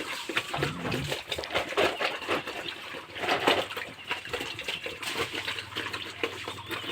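Pigs eating wet feed from a trough: irregular wet slurping and splashing.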